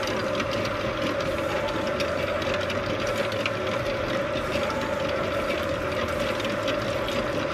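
Electric slime-mixing machine running steadily, its motor giving a constant hum as it churns glue into slime.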